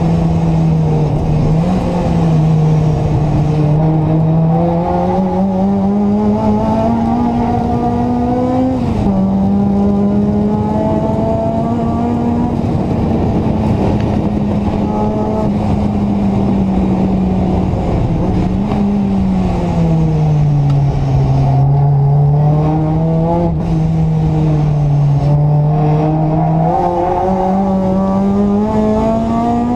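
Seventh-generation Honda Civic's engine driven hard on a circuit, heard inside the stripped cabin. The engine note climbs with the revs and drops suddenly at each upshift, about four times, and falls away for a stretch about two-thirds of the way through as the car slows.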